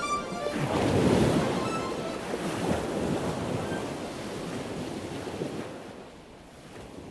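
Ocean surf washing on a shore as a steady rushing sound, swelling about a second in, then slowly fading out near the end.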